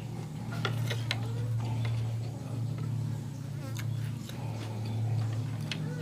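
Wooden chopsticks and a metal spoon clicking against a ceramic soup bowl in a few scattered sharp ticks, over a steady low hum.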